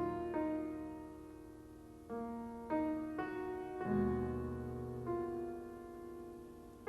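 Background music: slow, gentle piano or electric-piano chords with sustained, decaying notes and deep bass notes about four seconds in.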